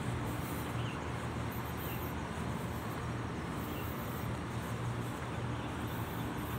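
City street ambience: a steady low hum of traffic.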